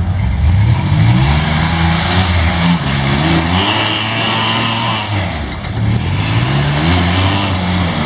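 Rock crawler buggy's engine revving up and falling back again and again as it works its way up a rock ledge.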